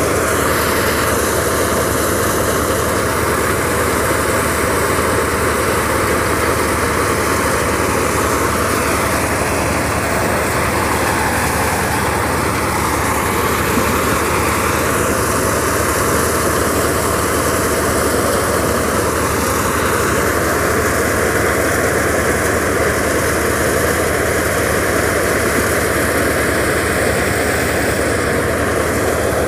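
Tractor-driven thresher running steadily while chickpea plants are fed into it: a loud, even drone of the tractor engine and the whirring thresher drum.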